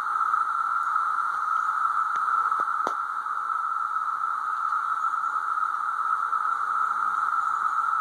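A swarm of cicadas calling together in one dense chorus: a steady, unbroken high-pitched whine that holds one pitch throughout.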